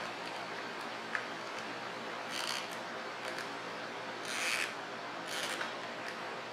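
Leather rubbing under fingers as a card holder's flap is worked over a brass stud button: a small click about a second in, then three short scuffs.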